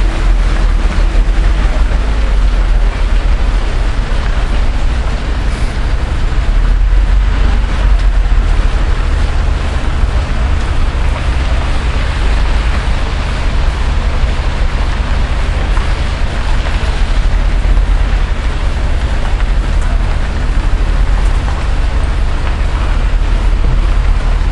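Steady outdoor town background noise: a strong low hum and rumble with an even hiss over it, and no distinct events.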